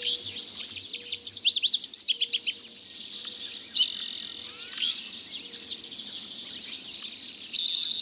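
Dawn chorus of many songbirds singing at once: rapid overlapping chirps, whistled glides and trills. A dry buzzing trill comes in twice, about four seconds in and near the end.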